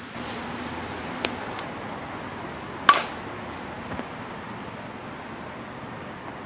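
A softball bat hits a pitched ball once, about three seconds in: a sharp ping with a short ring. Two faint clicks come before it, and steady wind noise runs underneath.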